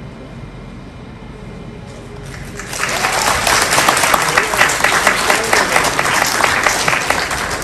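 Audience applauding, rising about two seconds in after a short quiet lull and staying loud.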